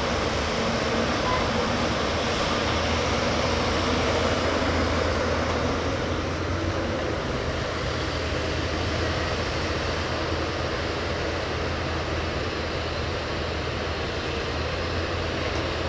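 Backhoe loader's diesel engine running steadily, a low hum under broad mechanical noise, easing slightly about six seconds in.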